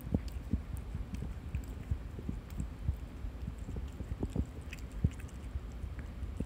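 A cat biting and chewing at a soft bread roll close to the microphone: irregular soft low thumps and small clicks of nibbling over a low rumble.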